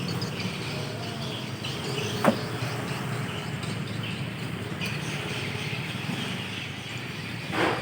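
Edible-nest swiftlet call sounds: faint, scattered twittering chirps over a steady low rumble, with a sharp knock about two seconds in and a louder thud near the end.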